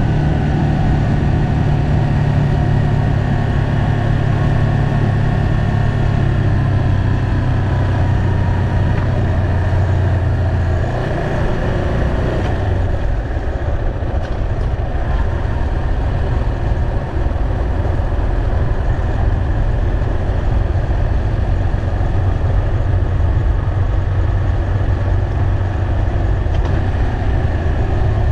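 Yamaha motorcycle engine running on the move. The strong steady engine note falls away about eleven seconds in, leaving a weaker, rougher sound, and comes back strongly near the end.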